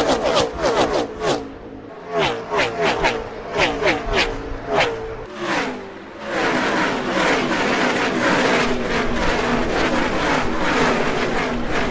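Gen 6 NASCAR stock cars' V8 engines at full speed passing close by, each engine note dropping in pitch as it goes past: several cars in quick succession, then from about six seconds in a tight pack whose engines overlap into a continuous rush of falling notes.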